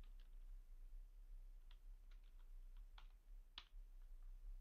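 A handful of faint, scattered keystrokes on a computer keyboard as code is typed, the clearest about three seconds in and again half a second later.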